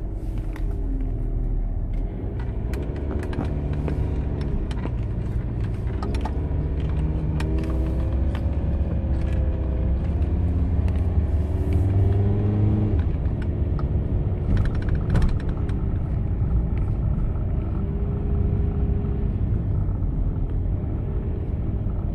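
Van engine and road rumble heard from inside the cab while driving slowly, the engine's pitch rising and falling as it speeds up and eases off, with scattered small clicks and knocks.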